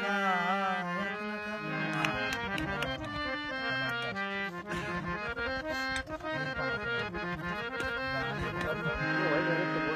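Harmonium playing a melodic instrumental passage between sung lines, its reeds sounding changing notes over a held low drone. A sung note trails off in the first second.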